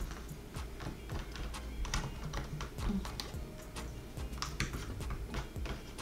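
Small cardboard jigsaw puzzle pieces clicking and tapping irregularly as they are picked up, moved and pressed into place.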